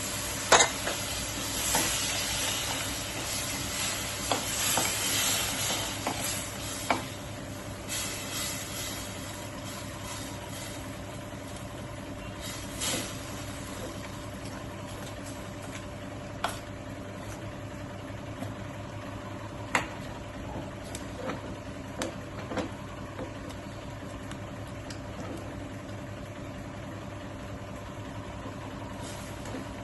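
Water just added to a hot pan of ghee and roasted spices, sizzling loudly at first and dying down over several seconds to a low steady hiss. A spoon stirring in the pan gives a few sharp clicks throughout.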